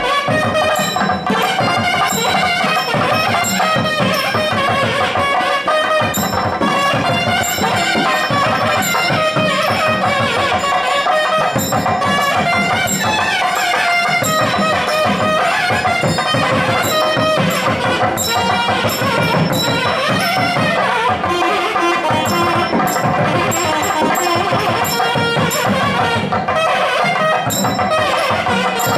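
Loud South Indian temple music: a nadaswaram playing a winding melody over steady thavil drum strokes, the music that accompanies a lamp offering to the deity.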